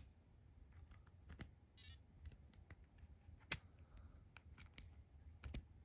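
Faint clicks and taps of a first-generation iPod touch and its dock-connector cable being handled, with one sharper click about three and a half seconds in and a brief, faint, high buzzy chirp about two seconds in.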